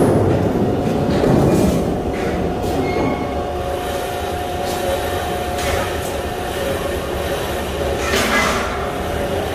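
Steady drone of heavy machinery in a sheet-metal fabrication shop, with a constant whining tone and a few short hissing noises, the loudest about eight seconds in.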